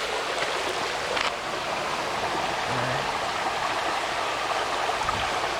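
Creek water rushing steadily over a small rock dam, with a couple of faint clicks about a second in.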